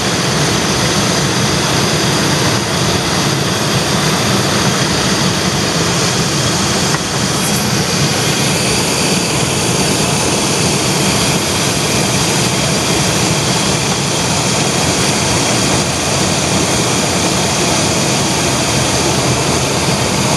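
Chevy Astro engine running steadily at idle, under a loud, even rushing noise that does not change.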